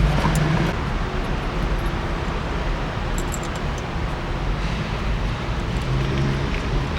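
Steady rumble and hiss of underground parking-garage ambience, with traffic noise, and a few light clicks about three seconds in.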